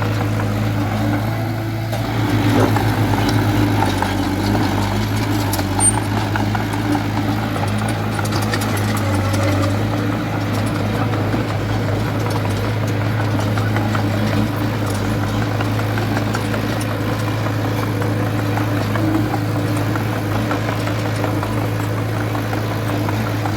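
Diesel engine of heavy earth-moving machinery running steadily with a constant low hum.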